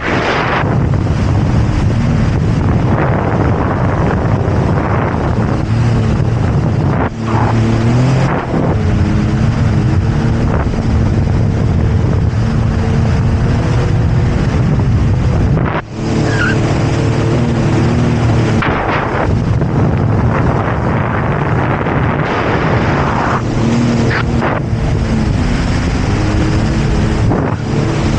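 Jet ski engine running at speed, its pitch rising and falling as the throttle changes, over a rush of wind and water spray. The sound briefly dips twice.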